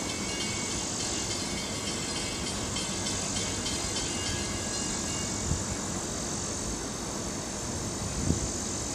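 Distant rumble of an approaching Long Island Rail Road train led by an EMD DE30AC diesel-electric locomotive, under a steady high-pitched hiss of insects in the trees. A couple of low thumps come in the second half.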